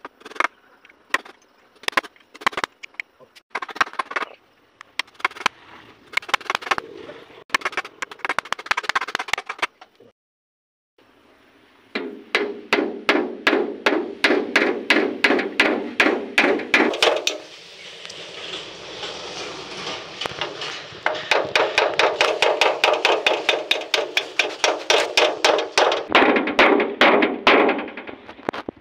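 Hammer driving nails into wooden boards: irregular knocks at first, then, after a short break, fast even blows that go on for many seconds.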